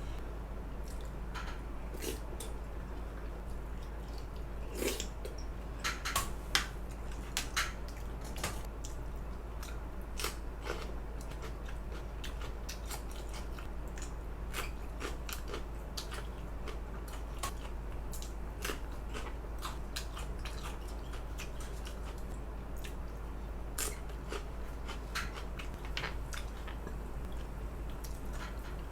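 Eating sounds: chewing and biting, with many scattered short sharp clicks, the densest cluster about five to eight seconds in, over a steady low hum.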